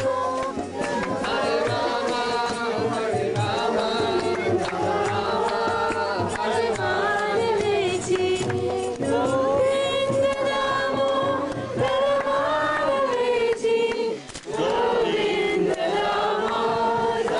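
A group of devotees singing a kirtan chant together in chorus, with percussion keeping a steady beat. The singing breaks off briefly about fourteen seconds in.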